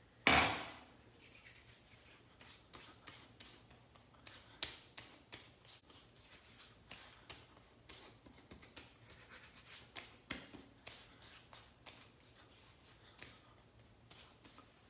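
Hands rubbing and patting aftershave balm into the skin of the face: a run of faint, irregular pats and rubs. A single loud sharp sound comes about a quarter of a second in and dies away quickly.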